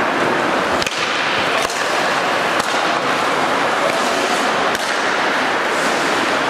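Ice hockey play: a steady hiss of skates on ice, broken by several sharp clacks of sticks and puck.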